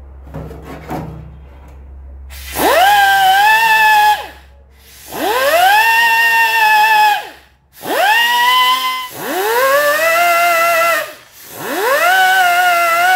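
Small air-powered grinder run in five bursts, each spinning up to a high whine with a hiss of air, holding, then spinning down. It is cleaning weld-through primer off the edges of the steel before welding.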